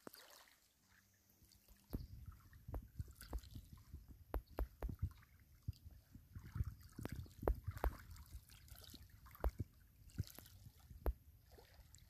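Faint water lapping and gurgling at the edge of a pebble shore, with irregular low thumps and sharp clicks starting about two seconds in.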